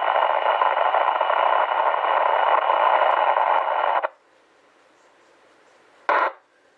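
Kenwood TR-7500 2-metre FM transceiver's speaker putting out a steady, buzzy hiss from a noisy repeater signal, which cuts off abruptly about four seconds in as the squelch closes. A short burst of noise follows near the end. The noise is put down to bad filtering somewhere in the linked repeater system.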